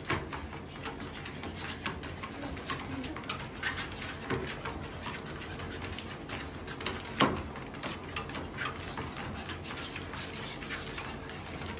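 Treadmill running with a steady hum while a pug trots on the belt, its paws tapping and its short-nosed breathing snuffling and grunting. One louder snort comes about seven seconds in.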